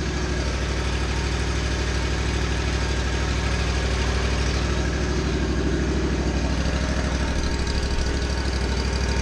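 Ride-on aerator's gasoline engine idling steadily while its Hydro-Gear ZT-3100 hydrostatic transaxles are driven slowly forward, wheels off the ground, to bleed air out of the freshly refilled hydro system.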